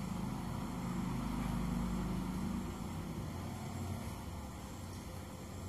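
A low motor hum that swells to a peak about two seconds in and then slowly fades.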